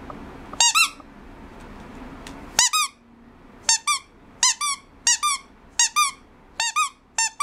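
A squeaky plush toy squeezed again and again by hand, giving about eight quick double squeaks, a bare one or two in the first few seconds and then about one a second.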